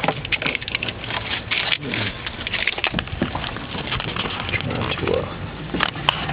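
Rustling and scraping with many small clicks and knocks as wiring is fed through the car's body by hand.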